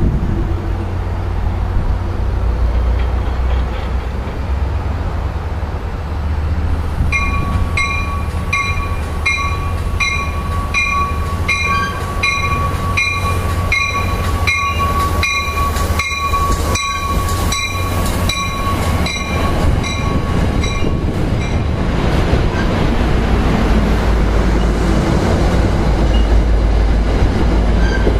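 NJ Transit commuter train rolling slowly into the station over a steady low rumble. Its bell rings about one and a half strokes a second from about a quarter of the way in, loudest as the cab car passes, and stops about three quarters through. The noise of the coaches rolling past then grows toward the end.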